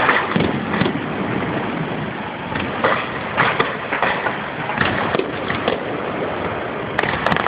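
Aerial fireworks bursting in quick succession: irregular bangs several times a second over a continuous dense din.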